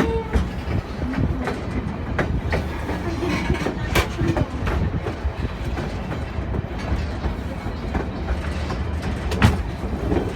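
Narrow-gauge passenger train car rolling along the track, heard from on board: a steady low rumble with irregular wheel clicks and clacks. Sharp knocks stand out about four seconds in and, loudest, about nine and a half seconds in.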